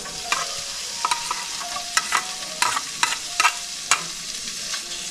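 Thinly sliced sea cucumber sizzling in butter in a frying pan, over a steady high hiss. About a dozen sharp clicks and short scrapes of a metal utensil against a ceramic plate and the pan cut through it, as chopped garlic is pushed off the plate into the pan.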